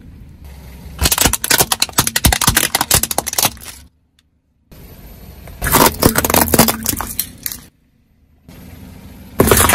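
A car tyre crushing things on asphalt: a dense crackle of crunching biscuits and cracking plastic toys. It comes in three short bursts, cut apart by two brief silent gaps.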